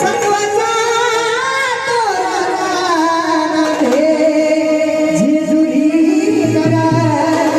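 A voice singing a gliding, ornamented melody in a Marathi folk song, over instrumental accompaniment.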